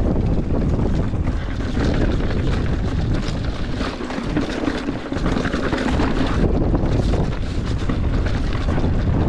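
Wind rushing over the microphone of a mountain bike descending a rocky trail at speed, with tyre noise and a constant ticking rattle from the bike. The low rumble of the wind eases briefly about four seconds in.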